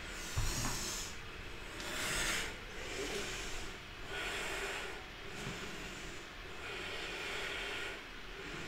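A woman's slow, audible breaths, a series of hissing inhales and exhales about every second or so, during a yoga vinyasa. There is a soft low thump about half a second in.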